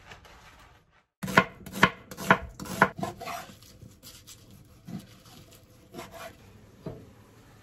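Kitchen knife cutting raw pork belly on a wooden cutting board: a quick run of sharp knocks of the blade on the board about half a second apart, then fainter, sparser cuts.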